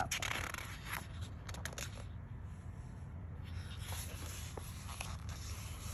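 Paper rustling and light handling clicks of a soft-cover book's pages being turned, over a low steady hum.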